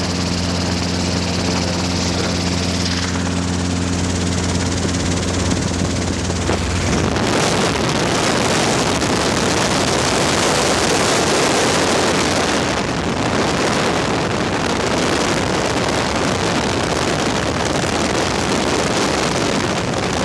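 Helicopter rotor and engine drone heard from aboard, a steady low hum with a stack of even tones; about seven seconds in a loud wind rush on the microphone takes over and largely covers it.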